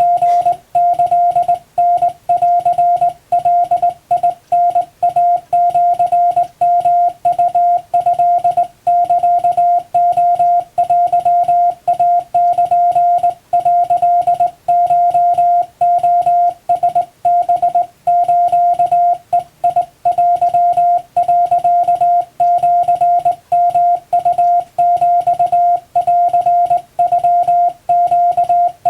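Hand-keyed Japanese Wabun Morse code: a single steady tone switched on and off in long and short elements, separated by brief gaps.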